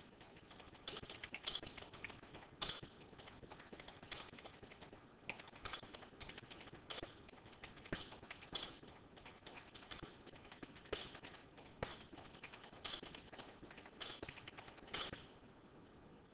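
A series of irregular light taps and clicks, one or two a second, starting about a second in and stopping shortly before the end.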